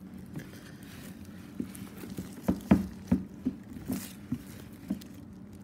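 Hands handling a large shrink-wrapped cardboard box: a quick run of about a dozen light knocks and taps over a few seconds, the loudest about halfway through, over a low steady hum.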